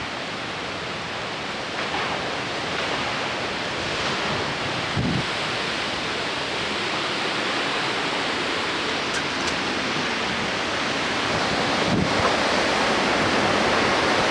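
Severe thunderstorm winds rushing through trees as a steady, loud roar that builds in the second half, with a couple of brief low buffets of wind on the microphone.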